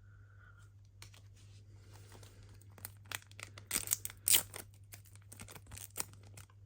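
Plastic trading-card pack wrapper being torn open and crinkled by hand, a run of small crackles that grows louder around the middle. A faint steady hum sits underneath.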